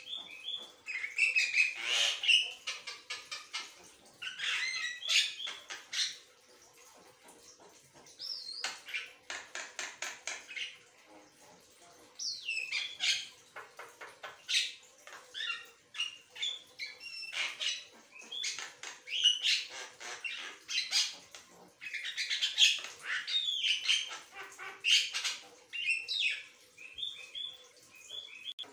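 Javan myna (jalak kebo) singing a long run of varied song: chattering phrases, gliding whistles and rapid rattling series of clicks, broken by short pauses.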